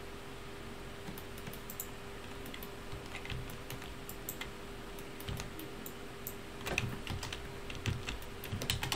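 Computer keyboard keys tapped in scattered short clicks, sparse at first and coming faster in the last couple of seconds, over a faint steady hum.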